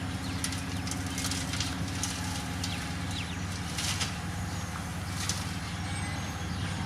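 Diesel engine of heavy road-construction machinery (motor grader or road roller) running steadily under work, with short crackles now and then over the hum.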